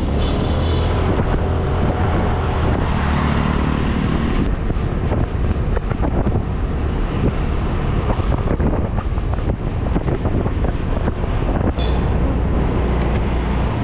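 Yamaha 125 cc scooter's single-cylinder engine running steadily at low city speed, with wind buffeting the microphone and traffic passing around.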